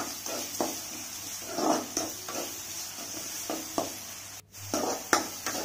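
Metal spatula scraping and stirring chopped onions as they sauté in oil in a metal kadai, in irregular strokes over a steady sizzle. The sound drops out for a moment near the end.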